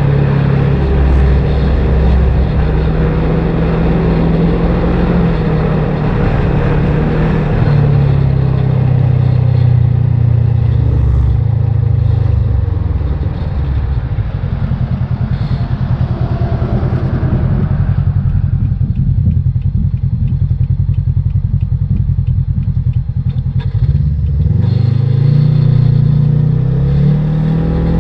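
Polaris RZR XP 1000's parallel-twin engine running at road speed, then dropping off as the machine slows and settling to an idle for several seconds past the middle. Near the end it revs up again as it pulls away.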